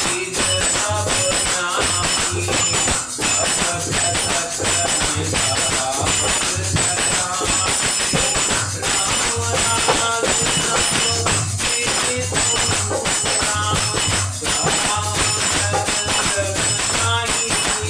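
An instrumental passage of Hindu devotional music. A steady low drum beat runs under a melodic line, with constant jingling, tambourine-like percussion on top.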